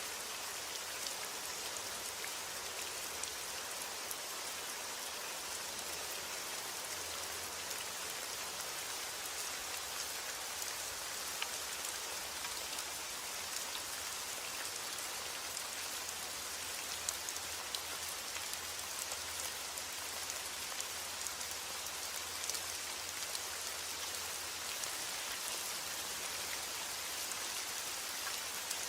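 Heavy rain falling steadily: a dense, even hiss of rainfall with individual drops ticking through it.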